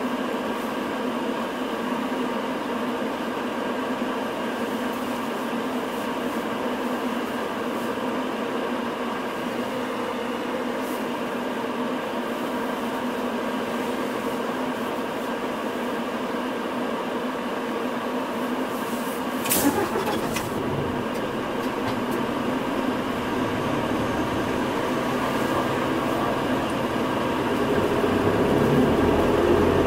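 Hino Rainbow non-step city bus heard from inside, its diesel engine idling steadily. About two-thirds of the way through there is a sharp click, then the engine note grows louder and deeper as the bus pulls away, rising further near the end.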